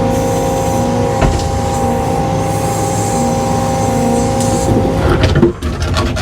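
Heavy machine engine running steadily, with a few clunks near the end.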